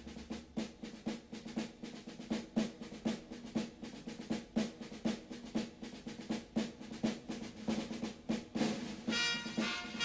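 Background music: a steady drum beat of about four strokes a second over a sustained low tone, with a brass-like melody coming in near the end.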